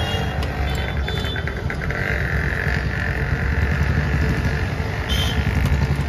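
Steady low rumble of a motor vehicle running nearby. A quick run of clicks comes about a second in.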